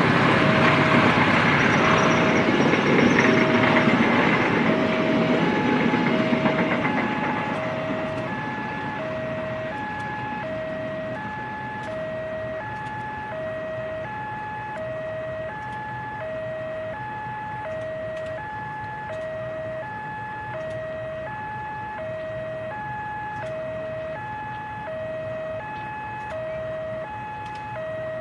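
Indonesian passenger train rumbling past on the rails, fading out over the first several seconds. Through it and on after it, an electronic two-tone warning alarm, most likely a level-crossing alarm, alternates a low and a higher tone steadily, about one tone every second and a half.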